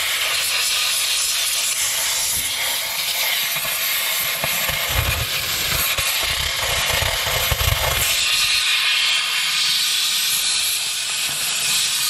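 Compressed-air blow gun hissing in one steady blast, blowing rust out of a skid steer's fuse and relay box, with a heavier low rumble of air for a few seconds midway.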